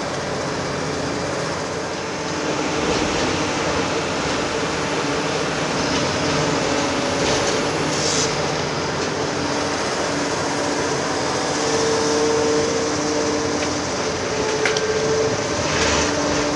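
Liebherr R 946 crawler excavator working, its diesel engine and hydraulics running steadily with a whine that rises and falls under load. A few short, sharp clanks come near the middle and toward the end.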